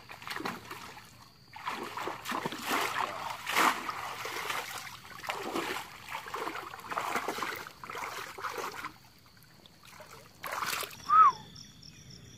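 Water splashing in irregular surges as a person wades through a shallow stream. Near the end the splashing stops, and there is a short, loud, sharp sound with a brief high squeak.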